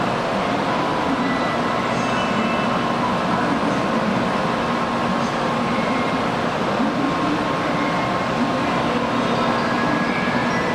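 An N700-series Shinkansen train standing at the platform, giving a steady, even hum from its equipment.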